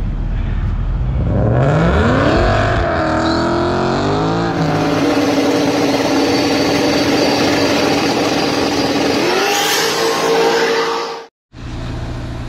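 Drag-racing car engine revving and accelerating hard, its note climbing steeply, holding high, then climbing again before cutting off abruptly. A steady low hum follows near the end.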